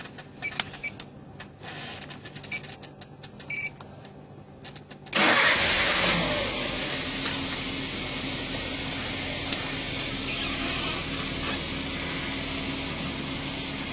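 A few short electronic beeps and clicks, then about five seconds in a vehicle engine is started through a fingerprint ignition system. It catches at once, loudest for about a second, and settles into a steady idle.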